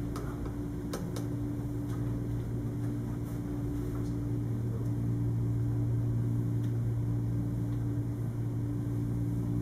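Steady low hum of fan-driven room equipment, with a couple of faint clicks about a second in.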